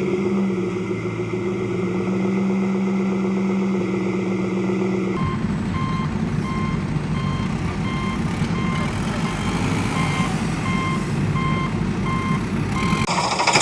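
Heavy vehicle engine running with a steady hum, then a rougher engine sound with a reversing alarm beeping about once a second. Near the end a rapid rattling, jackhammer-like sound starts.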